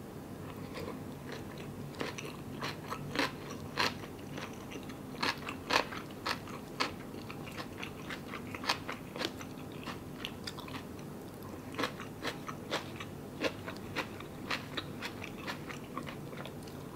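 A person chewing a mouthful of vegan kimbap (a seaweed rice roll dipped in noodle broth), with many irregular, soft, wet mouth clicks and smacks.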